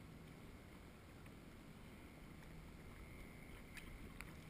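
Near silence: faint, steady water sounds against a kayak hull on calm sea, with two small ticks near the end.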